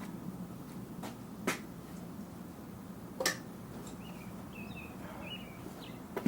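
Two sharp clicks, about two seconds apart, as hand tools are handled while fetching pliers, over a faint steady hum; a few faint high chirps follow.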